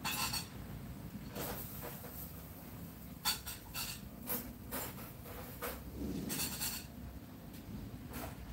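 Scattered light clicks and knocks of dishes and kitchen things being handled, about a dozen short sounds, with a longer rustling or scraping sound about six seconds in.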